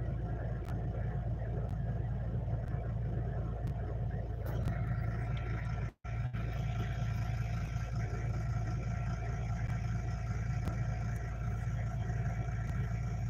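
Steady low hum of a Toyota vehicle's engine idling, heard from inside the cab, with a steady hiss of rain over it. The sound drops out for a moment about six seconds in.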